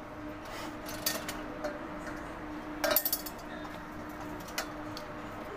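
Metal cookware clinking and clanking as a wok is handled among other pans: a few light clinks about a second in, a louder cluster of clanks about three seconds in, and one more near the end.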